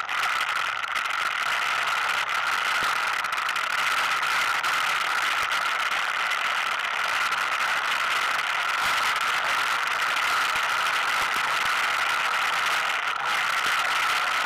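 ATV engine running at a steady pitch while riding a rough dirt trail, with the machine rattling over the ground.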